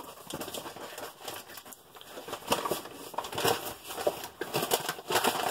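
Crinkling and rustling of ration packaging being handled: a run of irregular crackles and rustles that starts suddenly and grows louder about halfway through.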